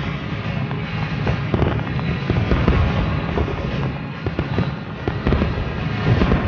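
Aerial fireworks going off in quick succession: a dense run of bangs and crackles over a continuous low rumble.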